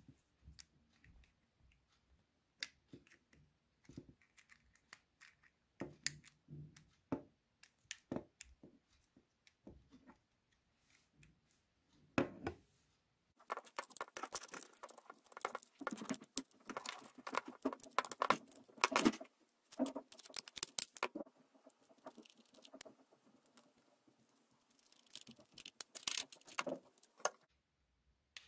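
Plastic housing parts of a Braun Series 5 electric shaver being handled and pressed together, with the rubber cover being slid on: scattered sharp clicks at first, then about 13 seconds in a dense run of clicking and rubbing for several seconds, and another shorter run near the end.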